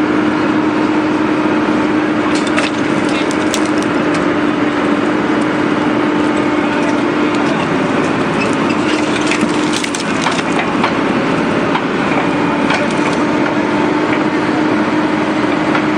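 Excavator engine and hydraulics running with a steady hum while a hydraulic pile breaker crushes a concrete pile, the concrete giving scattered sharp cracks and snaps, most of them around the third and tenth seconds.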